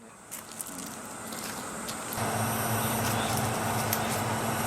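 A steady low mechanical hum, like a motor running, comes in about two seconds in over faint background noise and holds at an even level.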